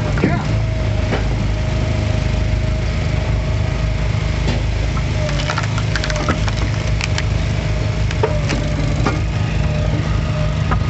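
Easton Made hydraulic log splitter splitting firewood: its engine runs steadily while the wood cracks and splinters in a series of sharp snaps as the wedge forces the rounds apart.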